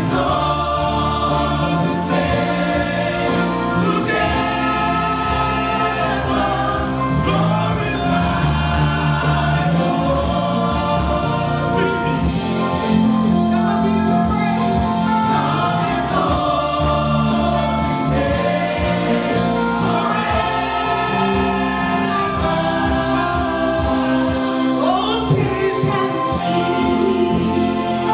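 Live gospel choir singing praise and worship music, recorded through a camera microphone with a slightly crackly sound.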